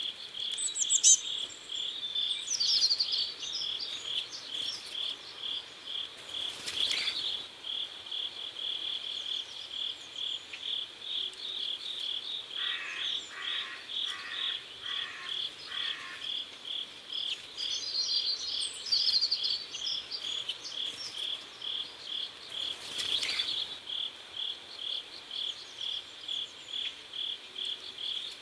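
Crickets chirping in a steady, evenly pulsed rhythm, about two to three chirps a second. Birds twitter briefly near the start and again about two-thirds of the way through, and a short run of lower pulsed calls sounds around the middle.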